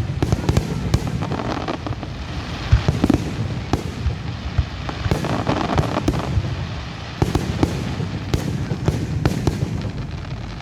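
Fireworks going off: many sharp pops and bangs at irregular intervals over a steady low rumble, with stretches of crackling.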